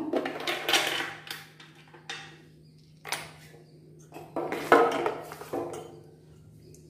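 Steel ladle stirring mango juice with ice cubes in a stainless-steel pot, clinking against the pot a few times, loudest near two-thirds through.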